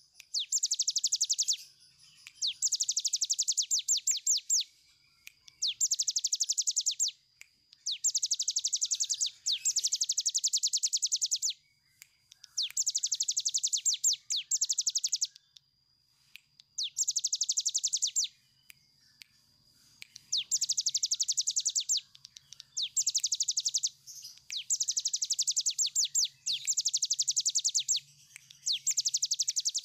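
Caged cigun, a small prinia, singing its long rattling trill ('ngebren'): bursts of fast, high, rapidly repeated notes, each about one to two seconds long, repeated about a dozen times with short pauses between.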